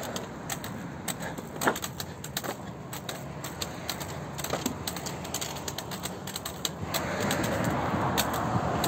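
Road traffic rumbling on the bridge road, with a car coming past that swells in noise about seven seconds in. Light irregular clicks and taps run throughout.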